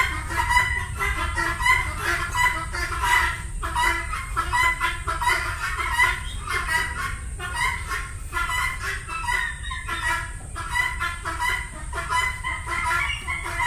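A flock of guinea fowl and young turkeys calling without pause, many short harsh calls overlapping, with a steady low rumble underneath.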